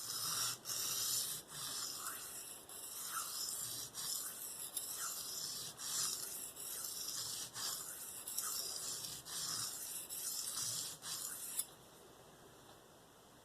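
Steel knife blade (K390 steel) being stroked back and forth across a Venev diamond sharpening stone. The rasping scrape repeats about once a second and stops suddenly near the end. The stone feels like a glazed hard Arkansas stone but is removing metal quickly.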